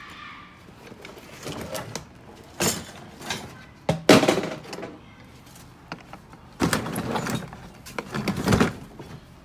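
Containers and bags of electrical parts being moved and sorted by hand: a string of clattering, scraping handling noises in about five separate bursts, the loudest starting sharply about four seconds in.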